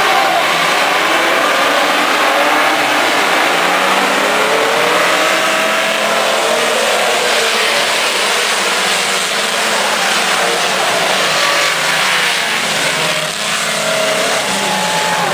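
A pack of dirt-track racing cars under hard throttle, many engines revving at once, their pitches rising and falling over one another.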